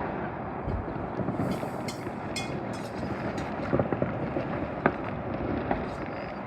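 Fireworks heard from afar: a steady rumbling wash of distant bangs, with a few scattered sharp pops and a brief crackling hiss a second and a half in.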